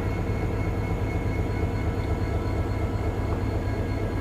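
NSWGR C class locomotive's GM 16-cylinder diesel engine idling steadily: a constant low rumble with faint high steady tones above it.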